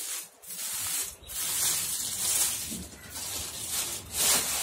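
Thin plastic wrapping rustling and crinkling in uneven bursts as it is stripped off a desk lamp and dropped onto a pile of plastic packaging, loudest near the end.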